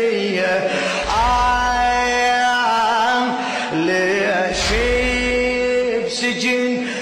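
A man chanting a Shia religious elegy in long, drawn-out notes, his pitch sliding into and out of each held note.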